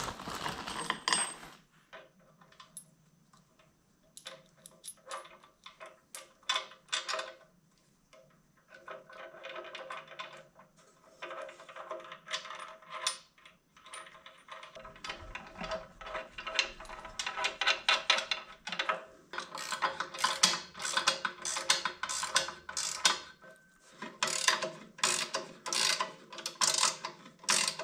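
Ratchet wrench clicking in fast runs of strokes, tightening the 7/16-inch bolts that fasten a bench grinder's base to its stand, with scattered clinks of the metal parts being handled at first.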